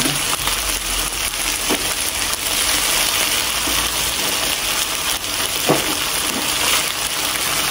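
Meat frying in hot fat, a steady sizzle throughout, with a few faint taps.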